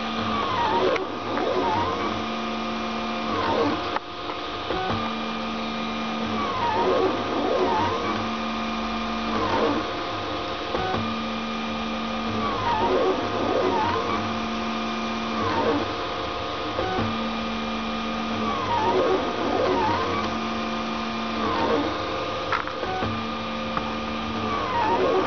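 Prusa i3 3D printer's stepper motors whining as the print head traces circular perimeters: a steady hum broken every one to two seconds by a dip and rise in pitch as an axis slows, reverses and speeds up again.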